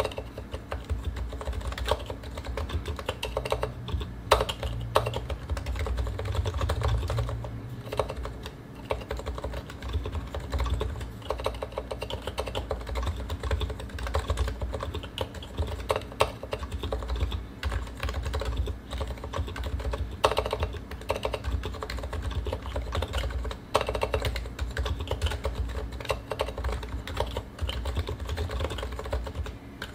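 Realforce R2 PFU Limited Topre keyboard, with uniform 45 g rubber domes, silent sliders and stock PBT keycaps, being typed on: a fast, continuous run of soft keystrokes, with a few louder strokes standing out.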